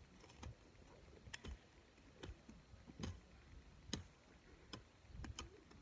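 Faint, irregular clicks and ticks of a small hand tool working the soil and pulling out roots.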